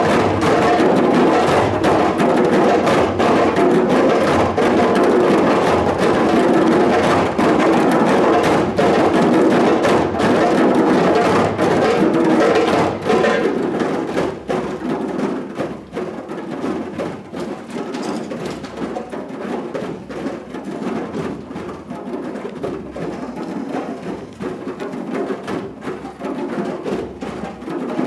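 Group of children playing djembes together, many hands striking the drumheads in a dense, steady rhythm. About halfway through, the playing drops to a quieter, sparser pattern.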